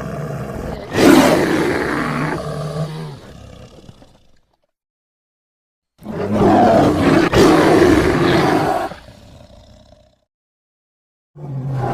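Layered big-cat roar sound effects, built from lion and tiger roars mixed with bear roars: one roar swells about a second in and trails off, then after a second or two of dead silence a second roar follows, and a third starts near the end.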